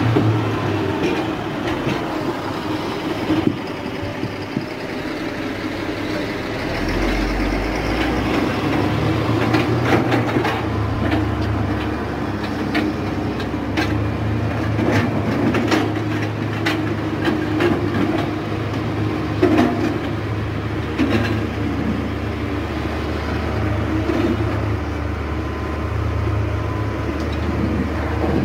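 Diesel engine of a Caterpillar motor grader running steadily close by as its blade pushes dirt and rocks, with scattered clanks and knocks of stone and metal through the middle stretch.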